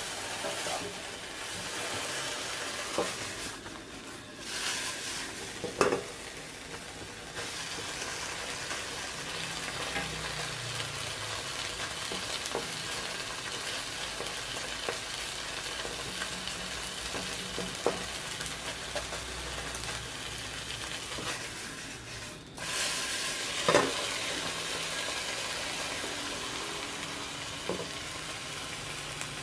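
Pangasius fillet and onions sizzling steadily in a nonstick frying pan. A spatula scrapes and taps against the pan a few times.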